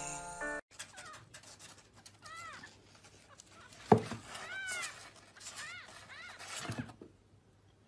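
Tiny kitten mewing: several short, high, arched cries spread over a few seconds, with a single sharp thump about four seconds in. The mewing stops a little before the end.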